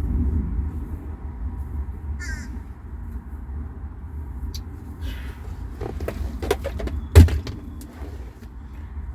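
A water bottle dropped, hitting the floor with one loud knock about seven seconds in, after a few small clicks of handling.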